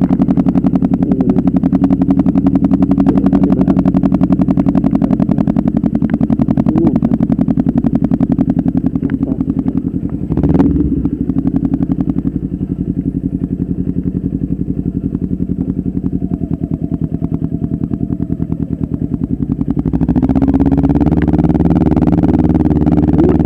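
Motorcycle engine running at idle with a fast, even pulsing beat. About ten seconds in there is a short sharp noise with a brief rise in pitch, after which it runs more softly, and it gets louder again near the end.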